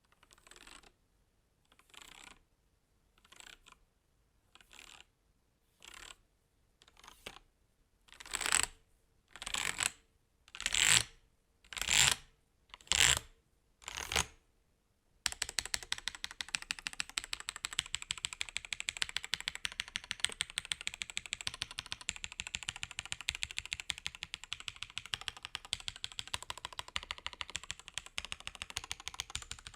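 Attack Shark K86 gasket-mounted mechanical keyboard being typed on. For the first half single key presses land about once a second and grow louder. About halfway it switches to steady, fast continuous typing.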